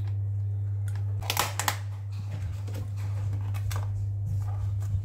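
Plastic takeaway containers being handled: a fork scraping as it stirs chia pudding, then lids pressed on, giving a few short scrapes and clicks over a steady low hum.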